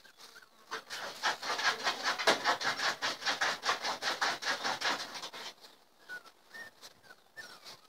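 A rapid rhythmic rasping, about five strokes a second, for about four seconds, then a few short, high whines from a Cavalier King Charles spaniel near the end.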